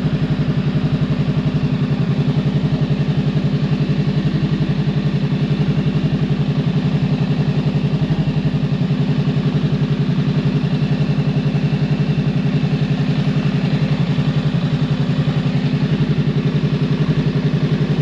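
Honda Rebel 500's parallel-twin engine idling steadily, with an even, unchanging pulse.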